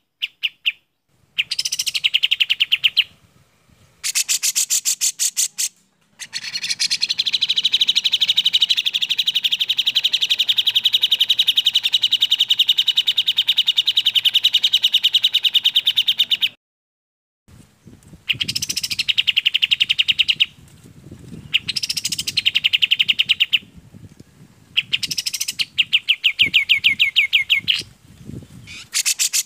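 Recorded song of the olive-winged bulbul (kapas tembak) and the grey-cheeked bulbul (cucak jenggot): rapid rattling trills. One trill runs on for about ten seconds; before and after it come shorter trilled phrases with gaps between them.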